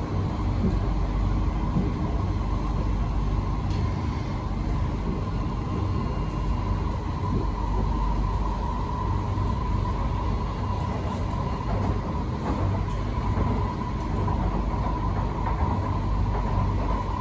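Singapore MRT train running between stations, heard from inside the carriage: a steady low rumble with a steady high whine over it.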